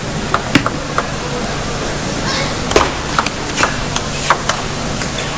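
Table tennis ball clicking sharply off the bats and the table in a rally, the hits coming about every half second in the second half, over a steady background hum of the crowd.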